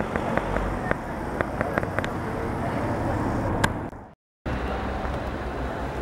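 Steady outdoor town ambience with traffic noise and scattered light clicks; the sound breaks off for a moment about four seconds in.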